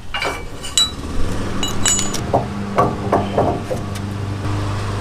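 Steel trailer-hitch parts clinking and knocking as an adjustable drop hitch and ball mount are fitted to the truck's receiver: a few sharp metallic clinks that ring briefly, then a quick run of knocks. A steady low hum runs underneath from about a second in.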